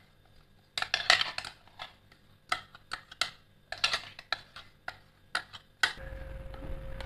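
Metal spoon scraping and clinking against the inside of a stainless steel mixer-grinder jar as thick batter is scraped out, in a string of separate short knocks and scrapes. A faint steady hum comes in near the end.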